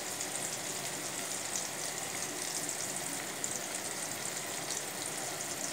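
Garlic cloves, small onions and tomato sizzling steadily in oil in a kadai.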